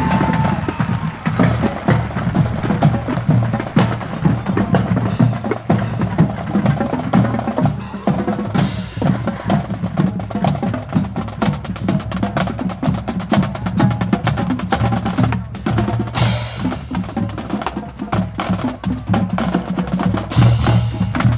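Marching band percussion playing a fast cadence: rapid drumstick strikes over low bass-drum tones.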